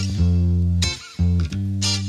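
Instrumental background music with sustained bass guitar notes and sharp plucked guitar attacks.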